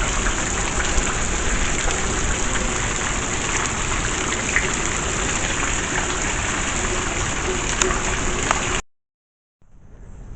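Heavy rain falling: a dense, steady hiss with scattered drop ticks. It cuts off abruptly about nine seconds in, and after a brief silence a much quieter sound begins.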